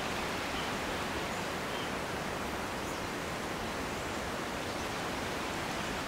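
Steady, even hiss of outdoor forest ambience, with no distinct calls or knocks standing out.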